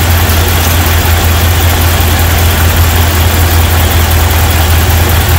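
Ram 1500 pickup engine idling steadily, heard from beside the open engine bay, running with fresh oil so it circulates and fills the new filter before the level is checked.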